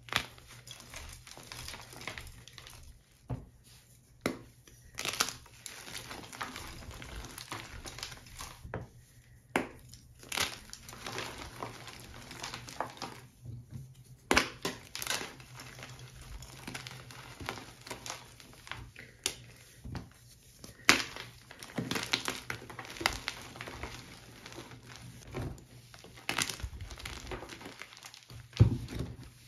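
Blocks of plain gym chalk (magnesium carbonate) crushed and crumbled by hand in a plastic tub: a gritty, crumbly crackle with frequent irregular sharp crunches as the blocks break. The crunch is there without the chalk being too hard.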